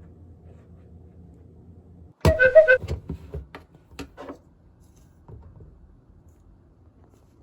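A quick run of clinks and knocks from hard objects striking each other, some ringing with a clear pitch, starting about two seconds in and tailing off into a few lighter taps, over a low steady hum.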